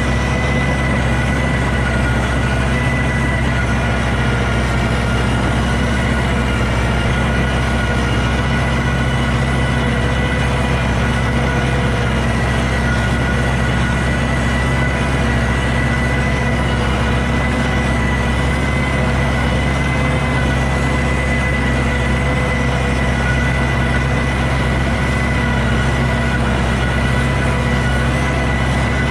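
Homemade tractor's 140 hp Iveco diesel engine running steadily under load while pulling a field cultivator, with a steady high whine on top.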